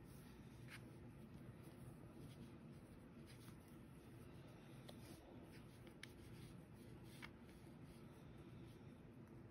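Near silence, with faint rubbing and a few soft scratches from yarn being wound by hand around a pipe cleaner.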